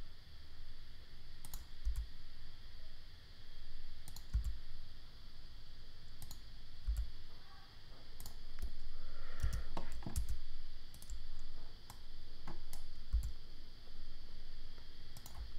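Computer mouse and keyboard clicking: a dozen or more sharp, irregular clicks, some with a soft thud.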